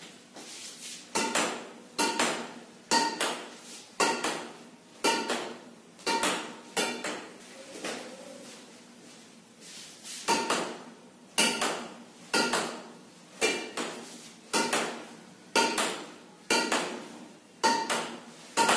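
Badminton racket striking a nylon shuttlecock against a wall in a steady rally, about one sharp hit a second, each with a brief ringing ping from the strings. The hits stop for about three seconds in the middle, then pick up again.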